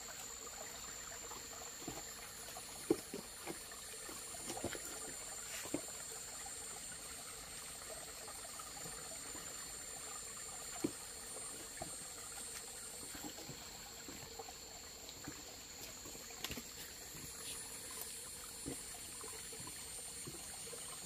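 Faint steady trickle of water, with a steady high-pitched insect trill above it and a scattering of light knocks and clicks.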